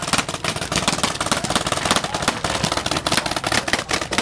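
Paintball markers firing in rapid, overlapping volleys: a dense, continuous crackle of many quick pops.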